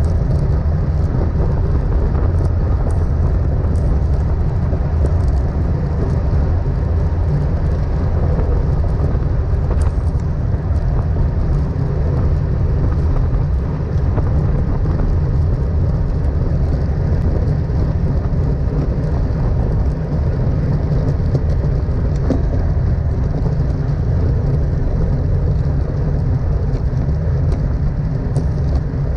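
Steady wind rush and low rumble on a GoPro's microphone from a road bicycle moving at speed, with road noise underneath.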